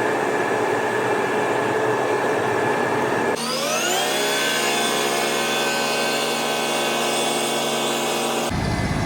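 Combine harvester engine running steadily. About a third of the way in, the engine note rises in pitch as it revs up, then holds at a steady high whine.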